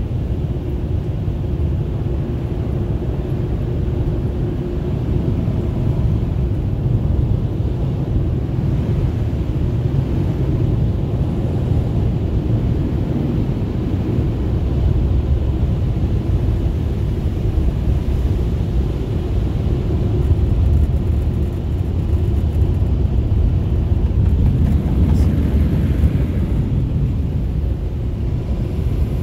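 The big blower dryer of a Ryko Radius automatic car wash running, heard from inside the van's cabin as a steady rush of air.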